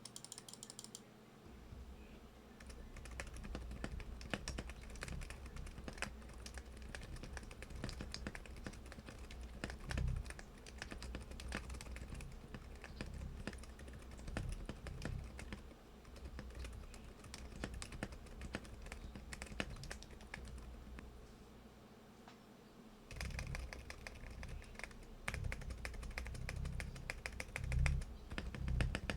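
Typing on a mechanical keyboard fitted with Zifriend Panda silent lubricated linear switches: a rapid, continuous run of keystrokes with a brief pause about three-quarters of the way through.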